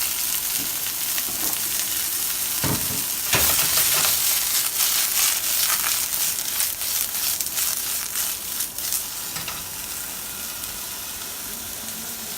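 Mushrooms sizzling as they sear in a hot frying pan. About three seconds in, the sizzle grows louder with a knock and a run of clicks and scrapes from stirring, then settles back to a steady, quieter sizzle near the end.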